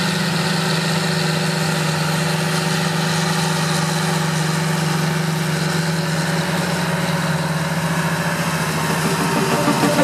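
John Deere 8330 tractor's six-cylinder diesel engine running at a steady pitch under load while pulling a Väderstad Carrier 625 XL disc cultivator through stubble.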